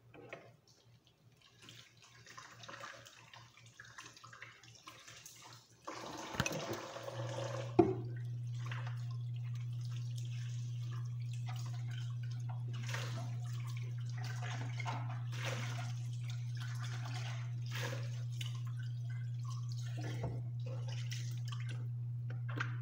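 Dishwashing at a kitchen sink: water running and dripping, with dishes and a plastic container being handled in short clatters. Water gets louder about six seconds in, and a steady low hum comes on a second later and holds.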